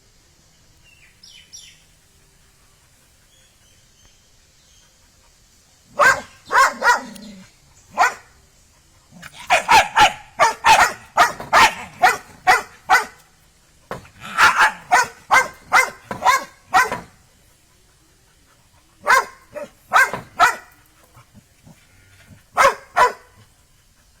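A dog barking in bouts of short, quick barks, starting about six seconds in, with pauses of a second or two between bouts.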